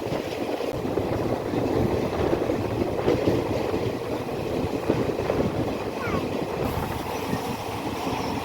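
Passenger train running along the track: a steady rumble and rattle with small repeated knocks from the wheels and carriage.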